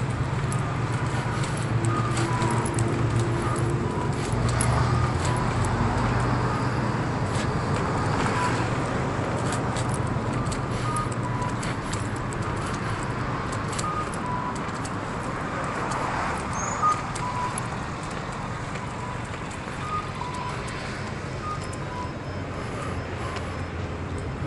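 Wheelchair rolling along a paved city sidewalk: a steady low hum with light rattling and clicking from the wheels over the paving, and road traffic around it. One sharp knock about 17 seconds in.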